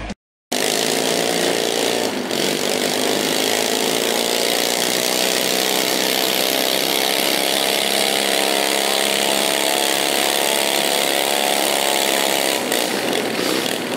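Small garden tractor engine running hard at high, steady revs under load as it pulls a weight-transfer sled; the note changes near the end.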